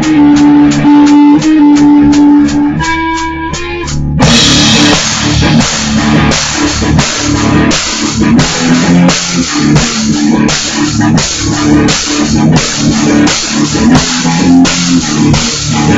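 Electric guitar playing a rock riff over steady ticks, about four a second. A full drum kit comes in about four seconds in, and guitar and drums play the riff together. Recorded through a laptop's built-in microphone, so the sound is poor.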